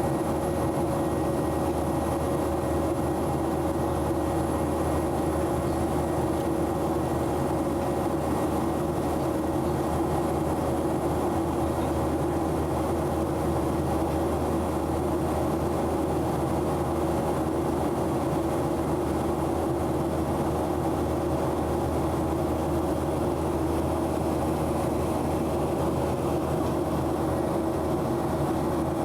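Steady jet airliner cabin noise inside a Boeing 737-900 after take-off: the CFM56-7B engines and rushing air make an even drone with a few humming tones and a faint high whine.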